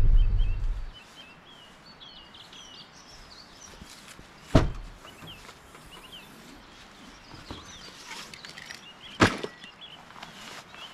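Small birds chirping, with two sharp knocks about four and a half seconds apart that are the loudest sounds. A low rumble fades out within the first second.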